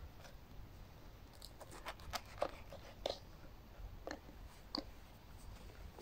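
A pocket knife's carbon-steel blade slicing a crusty bread loaf on a wooden board: irregular crunches of the crust with small knocks of the blade on the board, several close together in the first half and a few more later.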